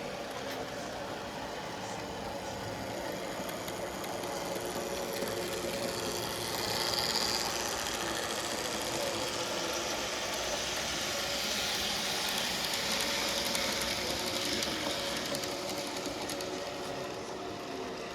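N gauge model train running around the layout: a small electric motor whirring, with the wheels rattling over the track. It gets louder for a moment about seven seconds in, and again from about eleven to fifteen seconds.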